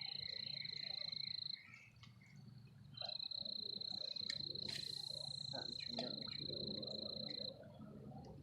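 A steady, high-pitched trill from a calling insect or frog at the pond, breaking off after about a second and a half, starting again about three seconds in, and stopping near the end. A brief rustling noise comes about five seconds in.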